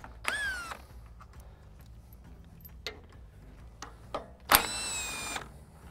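Cordless power driver spinning out the bolts of an excavator's hydraulic return filter cover in two short runs: a brief whine near the start that drops in pitch as it stops, then a longer, louder high-pitched whine about four and a half seconds in that starts with a sharp click. Light metal ticks and knocks from handling the tool come in between.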